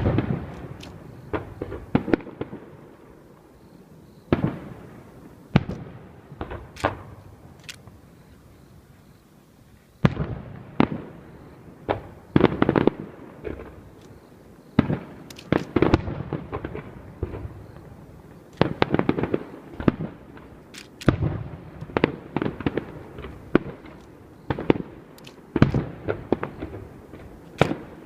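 Aerial fireworks bursting: a long run of sharp booms and cracks at irregular intervals, each echoing briefly, with a lull of a few seconds before the bursts come thick and fast.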